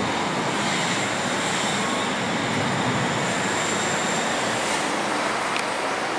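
British Airways Airbus A380's four Rolls-Royce Trent 900 turbofan engines heard as a steady jet rush as the airliner flies past low, with a faint high whine above it.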